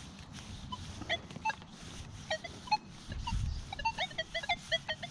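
Nokta Legend metal detector giving rapid, broken short chirps as its 6-inch coil sweeps over the curb strip: the little crackling that signals shallow foil trash in the ground.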